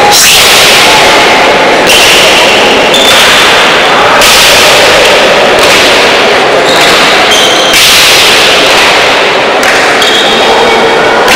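Pelota ball cracking against the frontón wall in a rally, a hit every second or two, each followed by a long echoing wash through the hall. The recording is overloaded, so the hits sound harsh and distorted.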